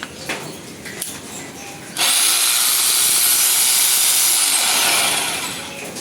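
INGCO RH150038 1500 W rotary hammer switched on about two seconds in, its motor whine climbing quickly to full speed and running steadily, then released and spinning down with a falling whine. A few light handling clicks come before it starts.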